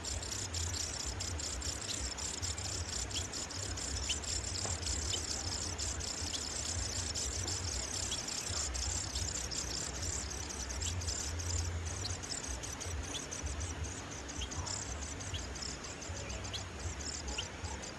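Insects chirping in a fast, steady pulsing trill, with scattered short high chirps over a low rumble.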